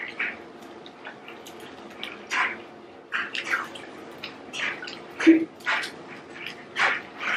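Close-miked eating of garlic bread pizza: irregular wet chewing and mouth smacks, with a brief low hum about five seconds in.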